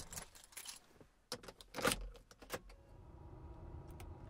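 Light metallic jingling and clinks for the first two and a half seconds, then a low steady hum.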